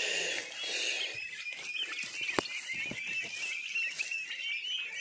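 A flock of two-month-old turkey poults peeping continuously: many short, high chirps overlapping. There is rustling in the first second and a single sharp click about two and a half seconds in.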